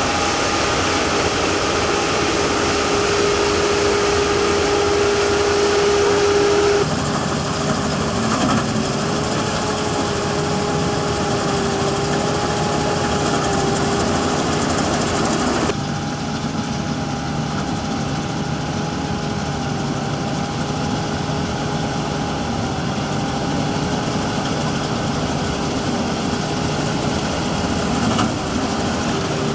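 Farm harvesting machinery engine running steadily with a constant whine over it. The sound changes abruptly twice, about seven seconds in and again about halfway.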